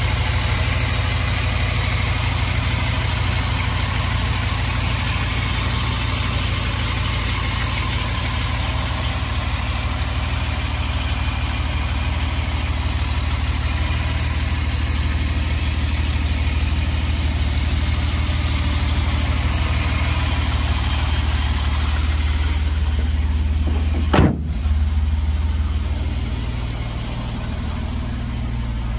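1970 Mercedes-Benz 280SL's 2.8-litre fuel-injected straight-six idling steadily after a cold start, heard with the bonnet open. Near the end the bonnet slams shut with one sharp bang, and the engine then sounds more muffled.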